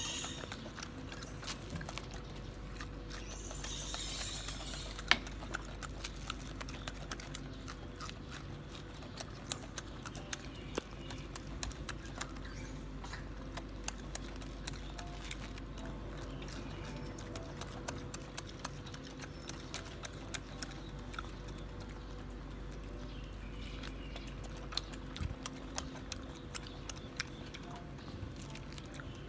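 Golden snub-nosed monkeys eating and handling food: many small, irregular clicks and taps over a steady hum, with a short rustle about four seconds in.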